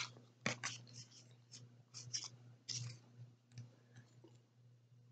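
Basketball trading cards being handled and slid past one another in the hands: a string of short, faint clicks and scrapes, most of them in the first three seconds, thinning out after that.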